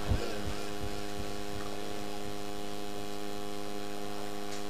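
Steady electrical mains hum from a microphone and loudspeaker sound system, several even tones held without change, with a brief low thump just after the start.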